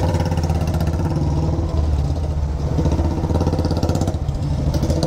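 Motorcycle engine and exhaust running steadily while riding, a dense low pulsing throb.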